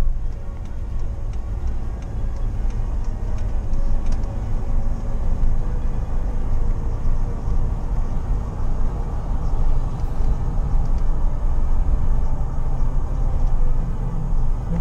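Steady road and engine noise of a vehicle driving along, heard from inside the cabin, mostly low-pitched and unbroken.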